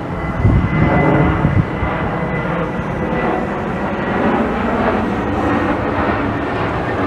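A jet airliner passes low overhead on its landing approach to Manchester Airport's runway 23. Its engines give a steady, loud rushing noise with a thin whine over the first few seconds.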